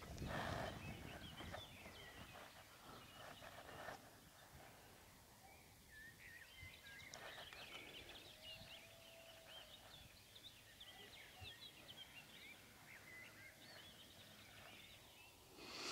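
Faint birdsong from several wild birds: many short, high chirps and twitters scattered throughout. A soft rustling comes in the first few seconds.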